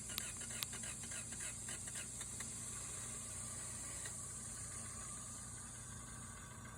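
Acura Integra engine idling steadily and quietly after being started by jumping the starter trigger wire straight to the battery, which shows the starter, battery and fuel supply are working. A few sharp clicks come in the first second.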